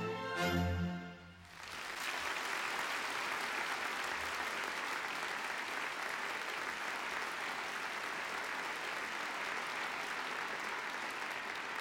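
An orchestra plays the closing chords of a ballet variation, stopping about a second in. Then a theatre audience applauds steadily.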